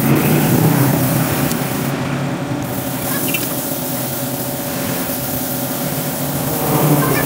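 Compressed-air spray gun hissing as it sprays paint, cut off briefly about two seconds in when the trigger is let go, over the steady hum of a small air compressor running.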